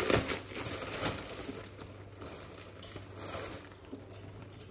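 Thin plastic bread bag crinkling as its twisted top is undone and pulled open by hand, loudest in the first second or so.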